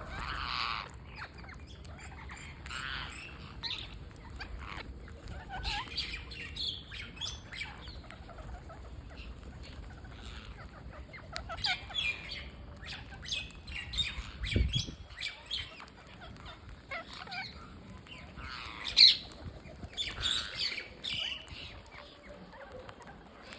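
Green parrots squawking and chattering in short, harsh calls, on and off, with one much louder squawk a little past the three-quarter mark. A brief low thump sounds about halfway through.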